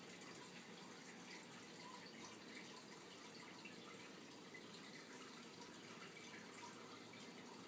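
Near silence: the faint soft rustle of fingers scratching through a dog's curly fur over a steady low hiss.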